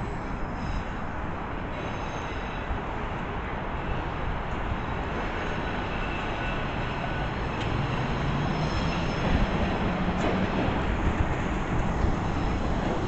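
MBTA Red Line subway train running along the track, its rumble growing louder in the second half, with faint high wheel squeal.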